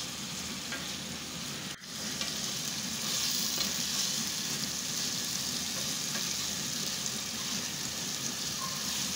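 Chicken pieces frying in desi ghee in a steel pot, a steady sizzle, while a wooden spatula stirs them through the masala; this is the bhuna stage where the ghee starts to separate from the masala. The sizzle briefly drops out just under two seconds in.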